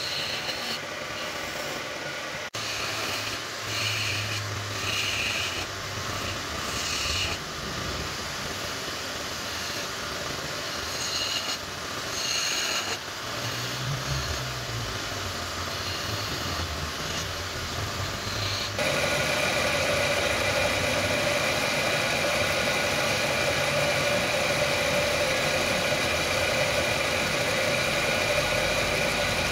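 Electric wood lathe running steadily with a motor whine while a flat steel scraper cuts the spinning wood, giving intermittent scraping. The sound changes abruptly about two and a half seconds in and again after about nineteen seconds, becoming a louder, steadier whine.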